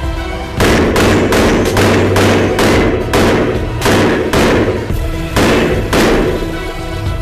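A fast string of about a dozen pistol shots from a red-dot-sighted competition pistol firing at steel plate targets, with a short pause before the last two shots. Background music plays under the shots throughout.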